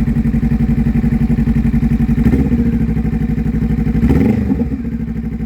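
Honda Rebel 500's parallel-twin engine idling through a Two Brothers aftermarket exhaust with an even, loud pulse. The note changes a little after two seconds in, and around four seconds in there is a short rise and fall in pitch before it settles slightly quieter.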